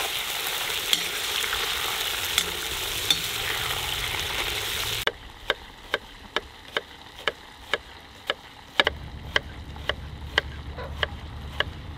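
Lamb ribs sizzling loudly in hot oil in a cast-iron kazan, stirred with a slotted skimmer. About five seconds in this gives way to a knife chopping onion on a wooden cutting board, sharp knocks about two a second.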